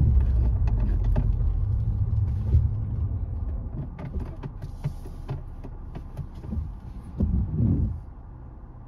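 Road and engine rumble inside a car cabin, fading as the car slows to a stop at a red light. A few faint clicks run through it, and a short louder rumble comes about seven seconds in.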